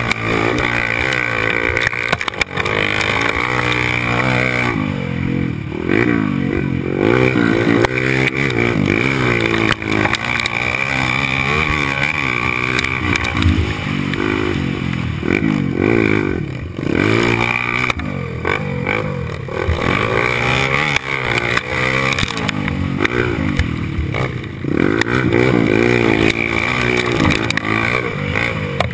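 Honda XR 250 Tornado's single-cylinder four-stroke engine heard from on board under racing load, its pitch rising and falling over and over as the rider opens and closes the throttle and changes gear.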